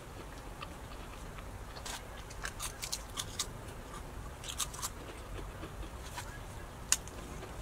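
Homemade baked wheat-and-flaxseed tortilla chips crackling as they are broken and handled. A few short, crisp snaps come in small clusters a second or two apart, showing their light, crispy texture.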